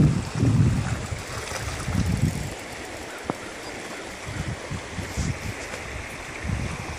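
Shallow creek water running over stones in a steady rush, with low gusts of wind on the microphone, strongest in the first couple of seconds.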